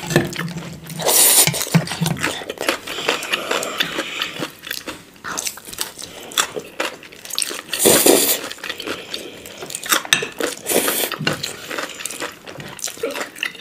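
Close-miked eating sounds: instant noodles slurped and chewed, with fork and chopsticks clicking against plates. A few louder slurps stand out, one about a second in and the loudest about eight seconds in.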